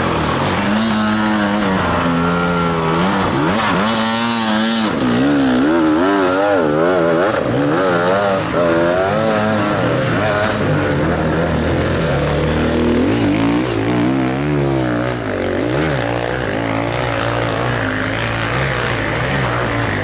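Off-road enduro motorcycle engines revving hard and unevenly under load on a steep, loose hill climb. The pitch surges up and down several times a second as the throttle is worked, and more than one bike can be heard at once.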